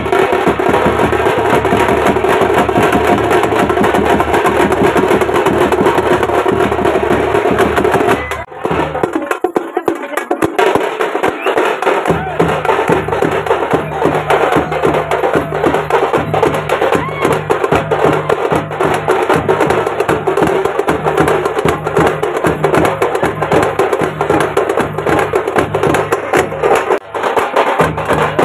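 Fast, dense stick drumming on Tamil folk drums, with crowd voices mixed in. About eight seconds in, the sound changes abruptly and the deepest drum tones drop out for a few seconds before the drumming carries on.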